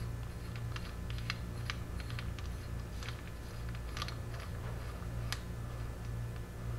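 Light, irregular metallic clicks and ticks of a nut being spun by hand onto the threaded rod of a bearing extraction tool, over a steady low hum.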